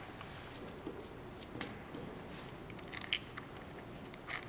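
Light metallic clicks and clinks as a small puncture-proof wheel's hub and the bolts through it are handled by hand, with one sharper click about three seconds in.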